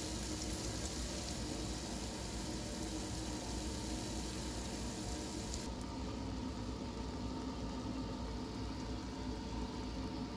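Hot oil in a deep fryer sizzling with a steady hiss over a steady hum. About halfway through, the brightest part of the hiss stops suddenly, leaving the hum and a softer hiss.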